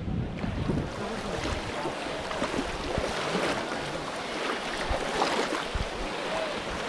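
Steady splashing and sloshing of water as many people wade and grope through a shallow muddy pond, with faint distant voices.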